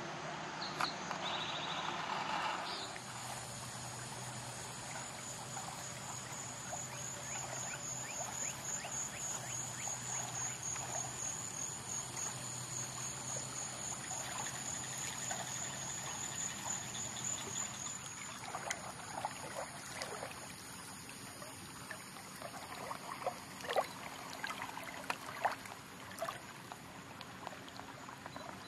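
Small waves lapping and splashing at a lake's sandy shore, the splashes sharper and more distinct in the second half. A steady high-pitched insect trill runs through the first half.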